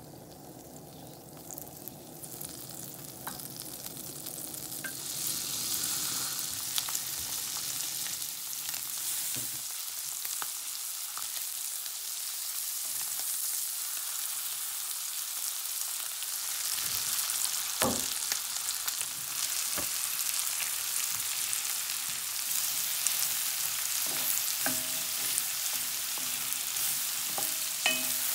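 Butter and then curry-marinated chicken pieces sizzling in an enameled cast-iron pan, the hiss building over the first few seconds and then holding steady. Scattered knocks of the chopsticks and wooden spatula against the pan come as the pieces are turned and stirred, more of them in the second half.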